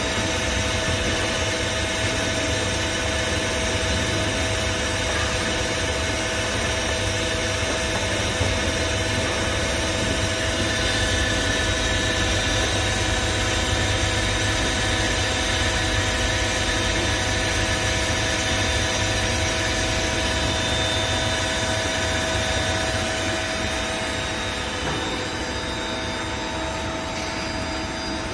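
Takamaz X-15 CNC lathe running, its spindle and chuck spinning a workpiece while a turning tool cuts it: a steady machine hum with several steady whining tones, easing a little near the end.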